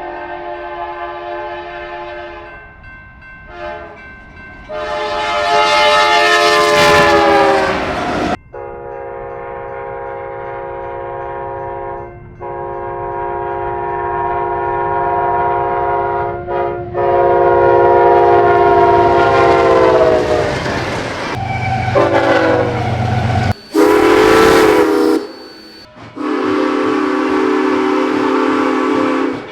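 A locomotive's multi-note chime sounding a series of long blasts, several clips spliced one after another. In some clips the chord slides down in pitch as the train passes.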